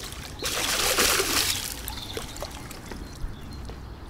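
Water pouring out of a mesh landing net as it is lifted clear of the lake, splashing onto the surface for about a second and a half and then tailing off, with a few small clicks after.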